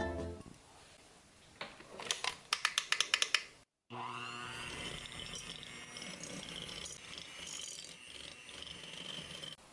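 Electric hand mixer starting up with a rising whine, then running steadily as its beaters cream cubed butter in a glass bowl. Before it, a quick run of sharp clicks; the mixer cuts off suddenly near the end.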